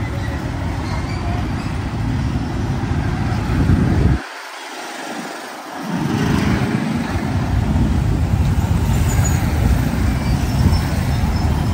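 Steady low rumbling outdoor background noise with no speech. The deep rumble cuts out suddenly about four seconds in and comes back about a second and a half later.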